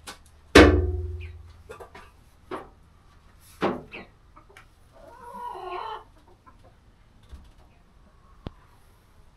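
Chickens clucking, with one stretch of wavering clucks about five seconds in. A loud thump with a short ringing decay comes about half a second in, followed by a few lighter knocks.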